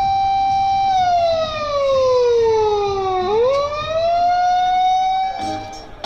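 Warning siren sounding during the deck-up of the life-size 98-shiki AV Ingram. It holds a steady tone, slides down in pitch for about two seconds, then quickly rises back up. Music with jingling percussion starts near the end.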